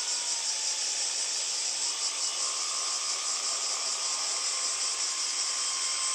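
Radio-controlled jetfoil model running, heard from its cockpit: a steady high hiss with a thin motor whine that steps up in pitch about two seconds in.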